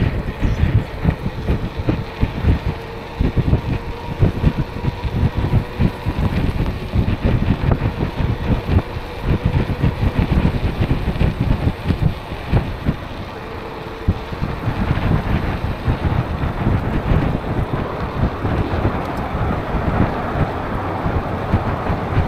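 Wind buffeting the microphone on a moving e-bike, with road traffic going by. A faint steady whine runs through the first half, and the traffic noise grows fuller in the second half.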